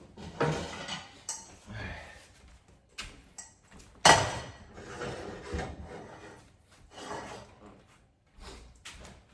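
Kitchen clatter of pots, pans and cupboard or drawer being handled while a frying pan is fetched: a series of irregular knocks and clanks, the loudest about four seconds in.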